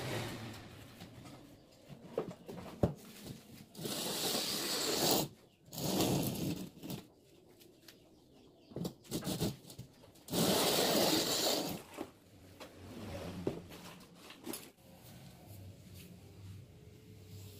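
Workshop handling noise at a mortar-filled steel mould: three bursts of scraping, about four, six and ten seconds in, with a sharp knock at the start and scattered knocks and clicks in between.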